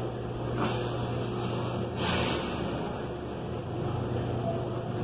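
A man sniffing and breathing out while tearful, with short noisy breaths about half a second and two seconds in, over a steady low hum.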